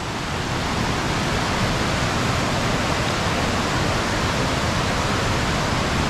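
Steady, even rush of water from a long cascading waterfall.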